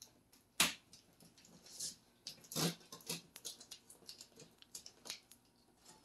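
Sharp clicks and small scratching ticks of a knife and hands working against the plastic-wrapped cardboard box, the loudest click about half a second in and another a little after two and a half seconds.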